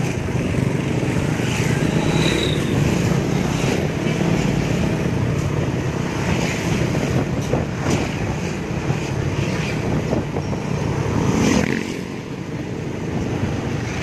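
Riding a motorcycle through town traffic: a steady rumble of the engine and road noise, with wind on the microphone and other motorbikes and vehicles going by. The noise swells louder about eleven seconds in, then drops suddenly.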